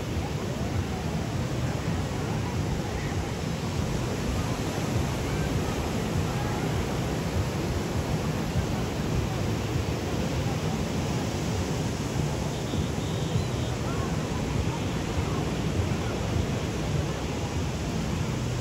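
Steady wash of small waves breaking on a sandy beach, with the faint chatter and calls of many people bathing in the shallows.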